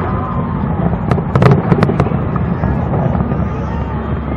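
Aerial fireworks bursting in a display: a quick run of sharp cracks about a second in, over a steady low rumble of booms.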